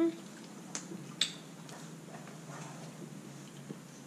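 People chewing pizza, with wet mouth clicks and lip smacks at irregular moments; two sharper clicks come about a second in.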